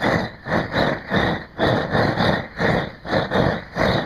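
Handheld propane torch flame running in uneven surges, about three a second, as it heats the old caulking on an eavestrough seam to soften it for scraping.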